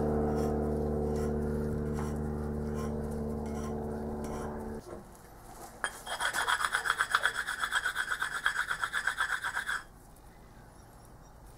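A machine hums steadily for about five seconds and then stops. Then a cast metal bearing cap is rubbed flat in quick back-and-forth strokes, about five a second, for about four seconds, to true up faces that tapping the threads has deformed.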